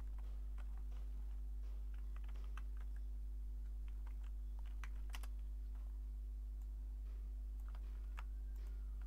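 Typing on a computer keyboard: irregular clicking keystrokes over a steady low hum.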